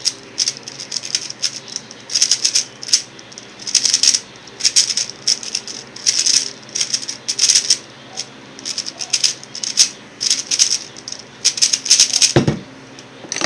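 X-Man Tornado V1 3x3 speedcube being turned fast during a solve: quick runs of rapid plastic clicking and clacking, broken by short pauses between groups of turns. A single thump near the end.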